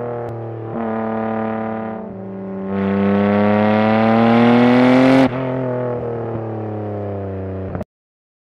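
Sports car engine sound effect revving: a short step up, then a long climb in pitch to its loudest about five seconds in. It drops suddenly to a lower steady note and cuts off abruptly near the end.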